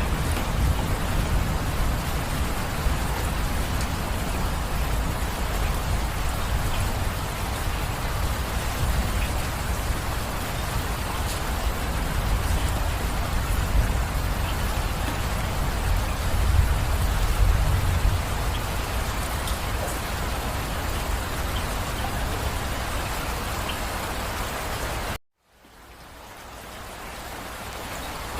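Steady heavy rain falling, with a low thunder rumble under it that swells about two-thirds of the way through. Near the end the rain cuts out suddenly for a moment, then fades back in.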